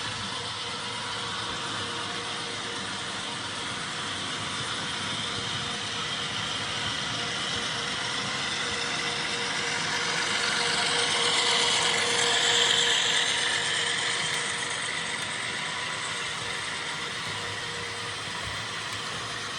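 HO scale model train running on the layout track, a steady mechanical run with a faint whine, swelling louder about twelve seconds in as it passes close by.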